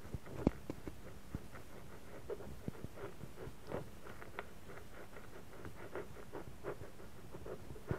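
Steel puncture probe being worked in a puncture hole in a tubeless motorcycle tyre: irregular scratchy ticks and creaks of metal against rubber, the sharpest about half a second in.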